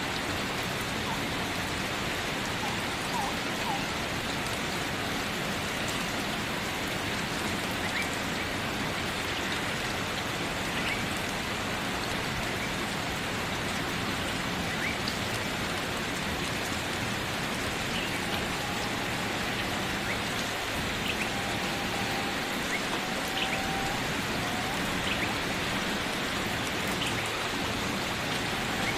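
Steady rain falling, an even hiss without breaks, with a few faint short high chirps scattered through it.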